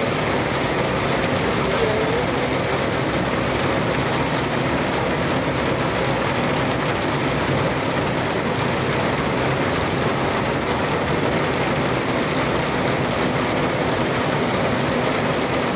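Heavy rain pouring steadily onto a paved street and pavement, a dense constant hiss that does not let up.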